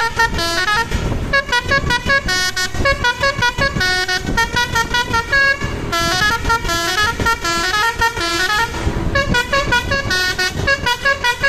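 Bus telolet horn, a multi-tone electric horn, playing a fast tune of short stepped notes that runs on without a break, with a low rumble underneath.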